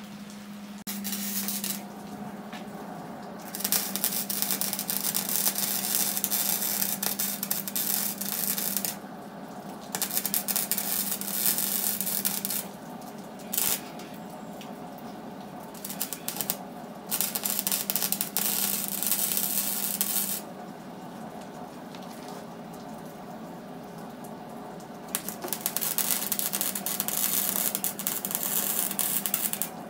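Wire-feed arc welding on a steel exhaust pipe: the arc crackles and sizzles in about seven runs of a few seconds each, separated by short pauses, as the pipe flanges are welded solid to seal exhaust leaks. A steady low hum runs underneath.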